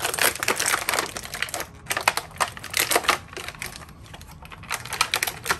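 Clear plastic action-figure packaging crinkling and crackling in rapid runs as a figure is worked out of its bag and tray, with a brief lull a little past the middle.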